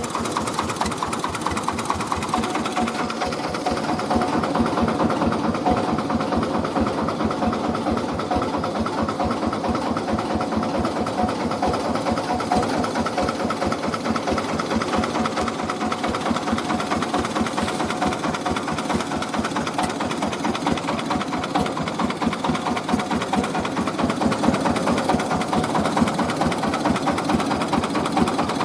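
Mobile rice milling machine running steadily, its engine beating at a fast, even rhythm with a steady hum over it.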